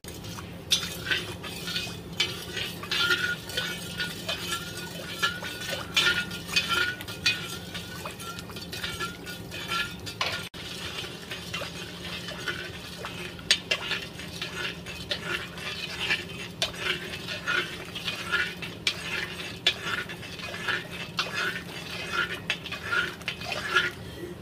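Spatula scraping and knocking against a metal kadai as bread halwa is stirred, in quick repeated strokes of about two a second, with a brief pause about ten seconds in.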